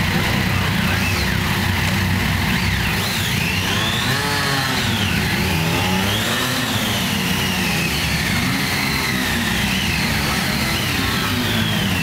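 A group of Triumph Daytona 675 three-cylinder sport bikes running together, with throttles blipped and engine pitch rising and falling again and again as the bikes move off one after another.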